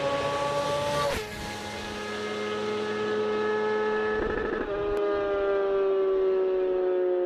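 A sportbike engine note held at high revs. It drops in pitch with a sharp click about a second in, steps up again after four seconds, then slowly winds down.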